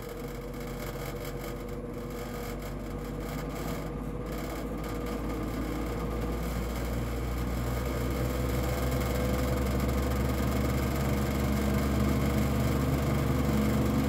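1960s Arvin model 7414 box fan running on high, a steady motor hum and whir that grows gradually louder as the blades slowly pick up speed. The slow run-up is partly down to the fan needing a bit of oiling.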